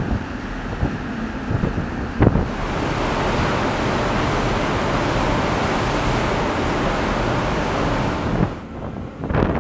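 Wind buffeting the microphone, then a steady rush of seawater churning in the narrow gap between two ships running side by side; near the end the rush drops away and gusts of wind return.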